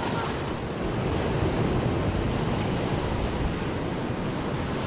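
Sea surf breaking and washing over shoreline rocks: a steady rush of water.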